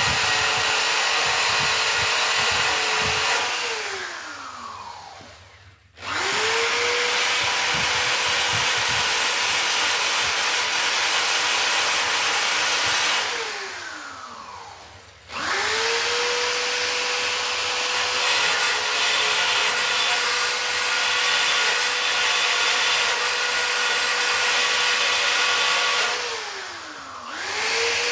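A small high-speed grinder runs at a steady high whine as it grinds down welds on thin steel. Three times it is let off: it winds down, falling in pitch over a couple of seconds, then starts up again quickly.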